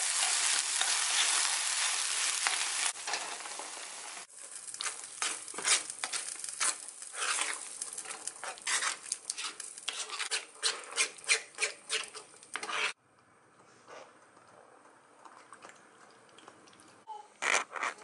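Food sizzling in a frying pan for the first few seconds, then a metal fork clicking and scraping against the pan in quick irregular strokes as the contents are stirred. About two-thirds through it drops abruptly to a quieter stretch of stirring in the sauce.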